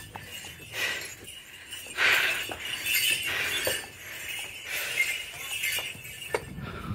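Irregular metallic clinking and jingling, a handful of short bursts spread over a few seconds, from the bullock that carries water up the hill as it climbs the stone steps.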